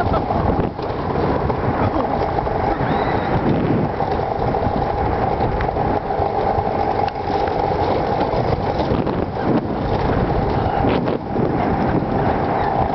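Alpine coaster sled running fast down its steel tube-rail track: a continuous rumble and rattle of the wheels on the rails with a steady whine under it.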